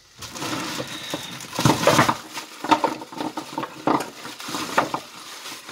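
Clear plastic bag crinkling and rustling as giant oysters are handled in a sink, with several sharp clacks of the rough shells knocking against each other and the sink basin.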